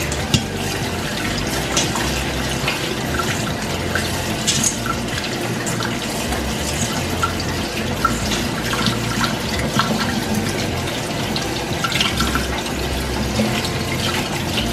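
Kitchen faucet running steadily onto blueberries in a colander held in a stainless steel sink, the stream splashing over the berries as hands turn them, with scattered small clicks and splashes.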